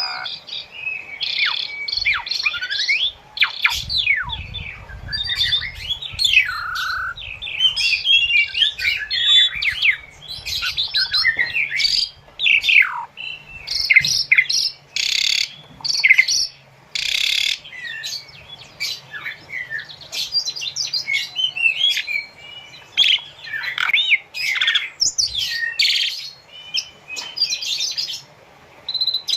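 Asian pied starling (jalak suren) singing a long, varied song of whistles and chattering notes, broken by short pauses, with a couple of harsh rasping notes about halfway through.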